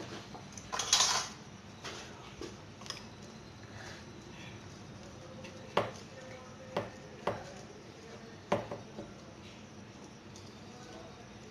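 Metal spoon working Oreo biscuit cream filling in a ceramic bowl, scraping and knocking against the bowl, with a cluster of clatter about a second in and a few sharp single clinks later on.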